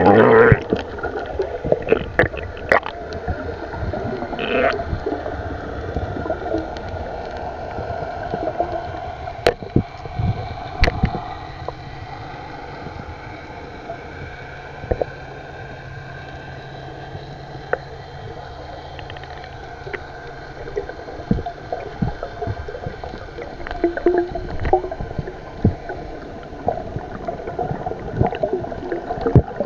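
Underwater sound heard through a submerged camera: muffled gurgling water movement with scattered sharp clicks and knocks. A steady low hum runs through the middle.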